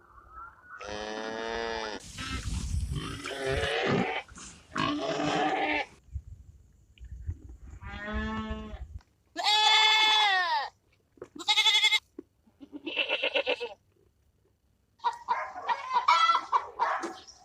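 Goats bleating: a series of separate calls with gaps between them, some long and wavering. A busier stretch of overlapping calls starts near the end.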